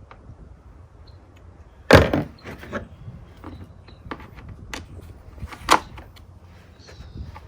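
Clicks and knocks of a chainsaw's bar, chain and side cover being handled and fitted during a chain change, the saw not running. Two loud knocks stand out, one about two seconds in and another about four seconds later.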